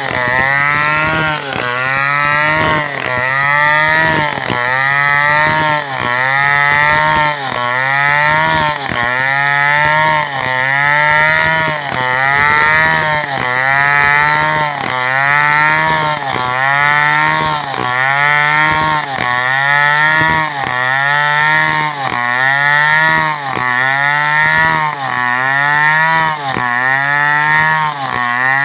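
Two-stroke chainsaw cutting lengthwise along a coconut trunk. The engine pitch rises and falls in a steady rhythm, about once every second and a half, as the saw is rocked into the wood.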